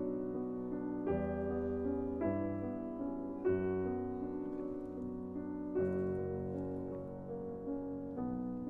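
Slow, soft piano music, with a new chord struck every second or two.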